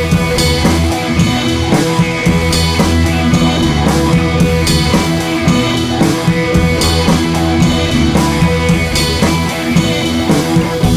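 Background rock music with drum kit and guitar, a steady beat.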